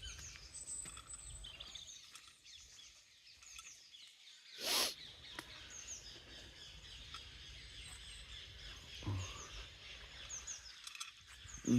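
Small birds chirping and twittering, with many short, high, falling chirps. A brief loud burst of noise comes about five seconds in.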